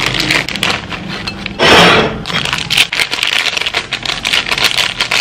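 Crinkly foil-lined plastic snack packets rustling and crackling as they are shaken and pulled open by hand, with a louder rustling surge about a second and a half in.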